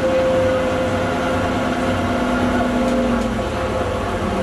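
Leyland Olympian double-decker bus running steadily: a continuous engine drone with steady whining tones, one of which rises slightly and stops about three and a half seconds in.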